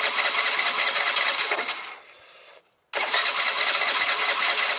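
Piaggio MP3 scooter engine being cranked on its electric starter without catching, in two attempts: the first stops about two seconds in, the second begins about a second later. It is a no-start, with carb cleaner sprayed into the intake and the throttle slightly open to test whether the engine is short of fuel.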